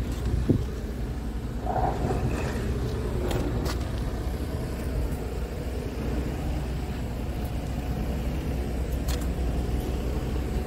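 Scania R tractor unit's diesel engine idling steadily, a low even rumble, with a short knock about half a second in and a few light clicks.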